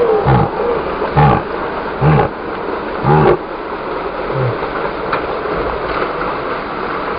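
Lifted full-size 4x4's engine running as it wades through deep creek water, with short deep pulses about once a second over a constant rush of water.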